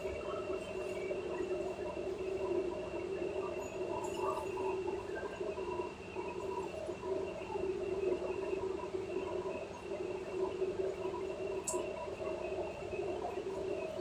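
Steady drone of a car ferry's engines heard from the vehicle deck, a low hum with several held tones. A brief tick sounds near the end.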